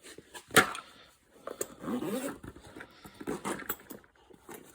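Handling noise from a tool backpack and its contents: a sharp snap about half a second in, then scattered clicks and rustling, with a short wavering whine around two seconds in.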